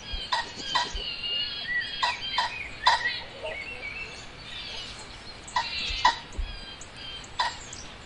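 Birds singing in forest: many high chirps and whistles, broken by short sharp calls that come in irregular clusters, several in the first three seconds and a few more later.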